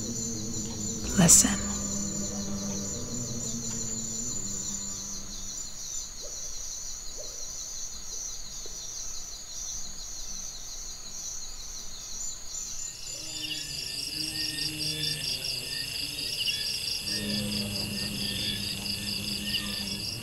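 A chorus of crickets and other insects trilling steadily in fine rapid pulses, with a second, different trill joining about two-thirds of the way through. A low humming drone sits underneath at the start and again in the last third, and a single sharp sweeping sound comes about a second in.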